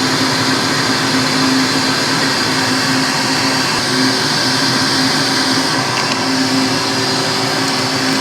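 Shop vacuum running steadily, started automatically with the Jet 20-inch drill press while the press bores a 1.5-inch Forstner bit into hardwood at 250 RPM. It is a loud, even noise with a low steady hum under it.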